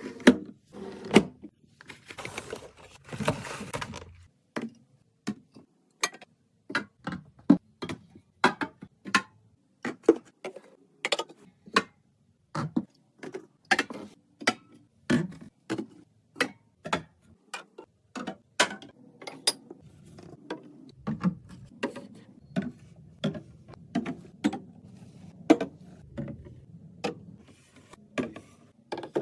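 Items being set one by one into a mini fridge: a long run of sharp clicks and knocks of hard containers on the shelves, about one or two a second, with a stretch of rustling about two seconds in.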